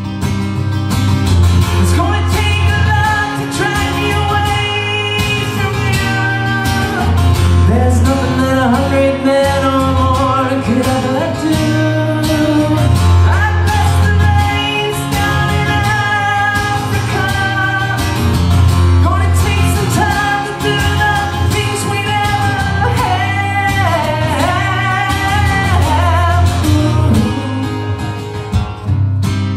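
Solo acoustic guitar strummed steadily under a man's singing voice, which holds and bends long notes, performed live.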